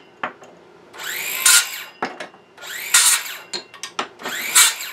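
Porter-Cable 20V cordless circular saw run briefly in the air: three short trigger pulls, the motor and blade whirring up in pitch each time and stopping, with small clicks of handling between.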